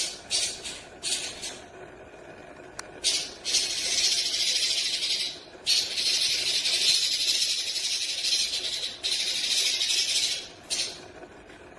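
Paok pancawarna, the banded pitta, giving harsh rasping hiss calls ('besetan kasar'): a few short rasps, then three long ones of a few seconds each.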